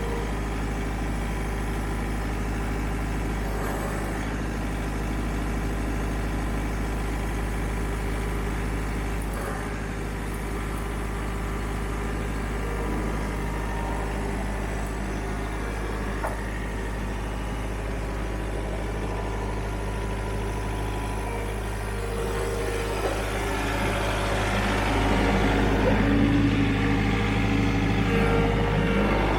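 Engine of a small vehicle running steadily at a constant pitch, growing louder for the last few seconds.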